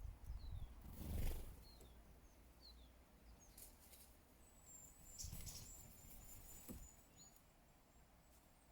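Faint outdoor feeding-spot ambience: small birds give short, high, falling chirps several times, and a thin high whistle is held for a few seconds in the middle. A few soft low thumps are mixed in.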